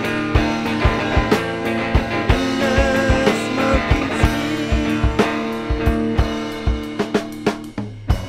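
Rock music with guitar and drum kit: sustained guitar chords over a steady drum beat, with a short wavering melodic line about three seconds in. The texture thins near the end to a few separate drum hits.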